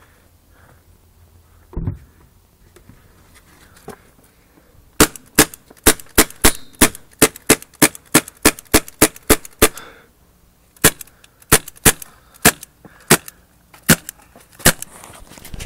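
A fast run of sharp cracks, about three or four a second for some five seconds. After a short pause, more cracks follow at a slower, uneven pace. A single duller thump comes about two seconds in.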